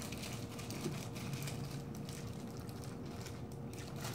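Faint crinkling of a disposable plastic glove as a hand scoops and squeezes fried rice into a ball, over a steady low hum.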